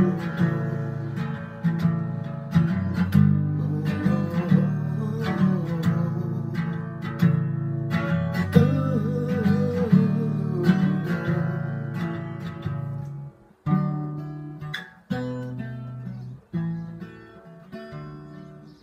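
Steel-string acoustic guitar strummed steadily through an instrumental break. About thirteen seconds in, the strumming changes to single chords, each struck and then cut short before the next.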